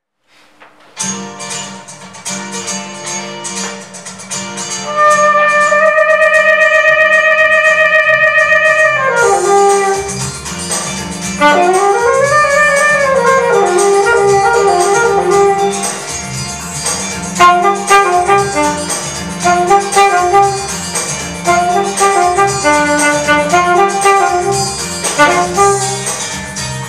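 Alto saxophone playing over a backing track with a steady beat. It holds one long note with vibrato for about four seconds, ends it with a falling glide, then scoops up into a bend and plays short melodic phrases.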